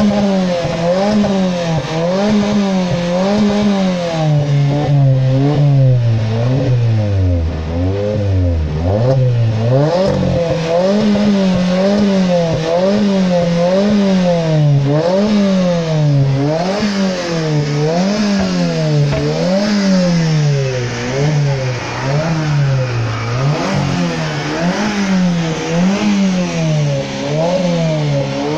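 Alfa Romeo MiTo's engine revved over and over while the car stands still: a run of quick blips, each rising and falling about once a second, with one deeper dip toward idle about eight seconds in.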